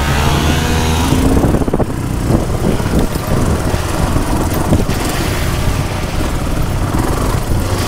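Off-road motorcycle engine running under way along a rough, wet gravel trail, its note climbing in the first second or so, mixed with a steady rush of wind and rattling from the stony surface.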